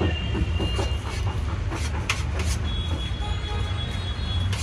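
Busy street traffic: a steady low engine rumble, with a thin high-pitched tone held from about three seconds in and a few sharp clicks a couple of seconds in.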